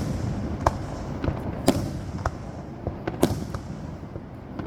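Aerial fireworks bursting: about six sharp bangs at irregular intervals, with a low rumble between them.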